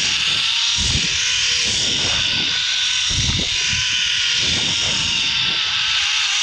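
Zip line trolley pulleys running fast along the steel cable: a steady, slightly wavering whine over a hiss. Wind buffets the microphone in uneven low gusts from the rider's speed.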